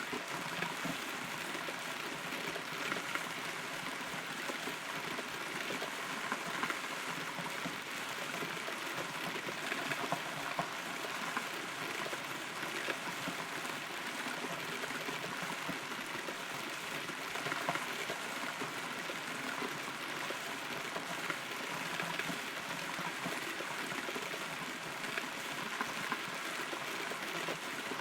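Steady rain falling around and onto a hollow, rotten tree, heard from inside the trunk, with many small drips and patters scattered through a continuous hiss.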